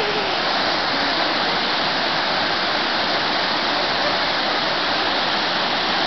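A small waterfall pouring over rocks into a plunge pool, making a steady, even rush of water.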